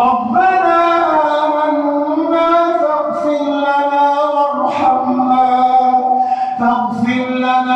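A man's voice reciting the Quran in a slow melodic chant (tajweed), holding long drawn-out vowels with ornamented pitch turns.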